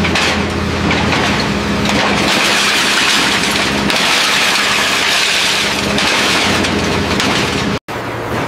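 Hydraulic scrap press compacting metal scrap: a loud, steady machine hum with a strong hiss over it. It cuts off abruptly near the end, and a different, steadier machine hum follows.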